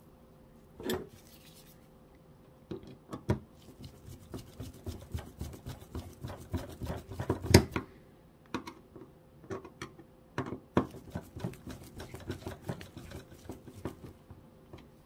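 Hand screwdriver driving a screw into a metal bracket on a laser-printer fuser unit: a run of short, irregular clicks and scrapes as the screw is turned in. There is a single knock about a second in.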